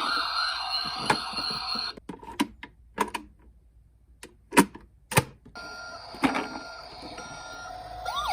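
Siren of toy emergency vehicles that cuts off about two seconds in, followed by a quiet stretch with several sharp clicks and knocks from the toy minicars. Near the end comes a fainter repeating electronic beep.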